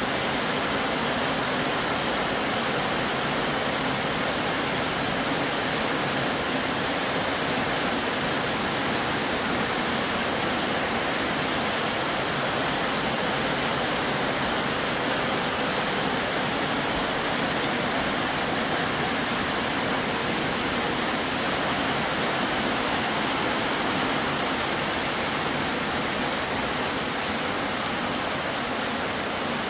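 Heavy rain pouring steadily without letup, drumming on a corrugated metal roof overhead.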